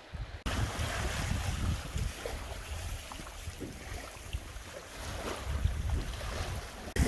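Wind buffeting the microphone: a steady rushing hiss with irregular low rumbling gusts, starting abruptly about half a second in.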